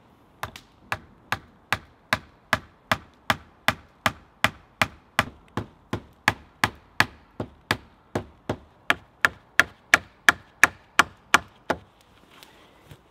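A steady series of sharp blows from a small hand tool striking a hazel rail where it joins a wooden post, about two and a half strikes a second, stopping near the end.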